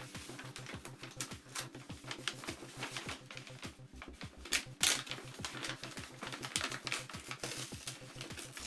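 Brown kraft wrapping paper being unfolded and pulled off a box, crinkling, with clear tape peeling away, in a quick irregular run of crackles and rustles.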